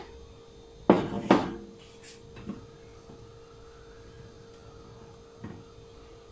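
Two sharp knocks close together about a second in, then two fainter taps, as things are handled and set down on a kitchen counter. A faint steady hum runs underneath.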